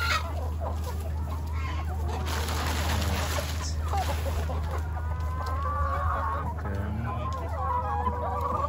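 Mixed flock of hens and roosters clucking while feeding, with longer pitched calls in the second half, over a steady low hum.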